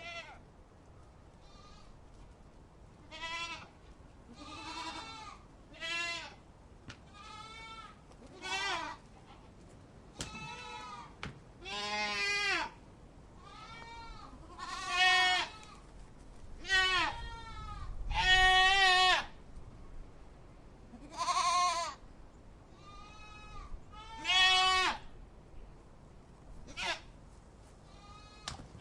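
Goats bleating: a string of separate calls, one every second or two, some with a quavering, wavering pitch. The loudest calls come from the middle onward.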